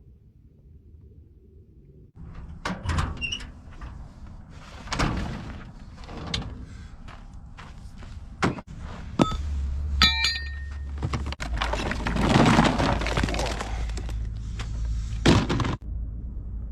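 A series of knocks, thuds and clattering from handling hard objects, with a door-like thunk, over a low steady hum that starts about halfway through.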